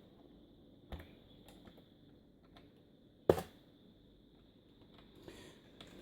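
A few sharp clicks of keys being pressed on a computer keyboard while navigating BIOS menus. One louder click comes about three seconds in, and a faint steady high-pitched electronic whine runs underneath.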